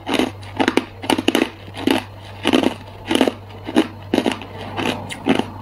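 Hard ice being chewed in the mouth: sharp, crackly crunches in short clusters, a little under two a second, close to the microphone.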